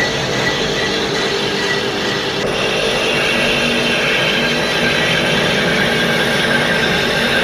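Lathe running: a steady machine noise with a thin high whine, changing in tone about two and a half seconds in.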